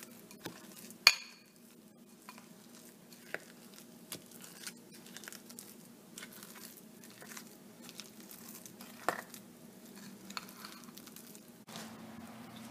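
Steel spoon mixing a thick red-bean filling in a glass bowl, with scattered clinks of the spoon against the glass; the sharpest clink comes about a second in, another near nine seconds. A faint steady hum lies underneath.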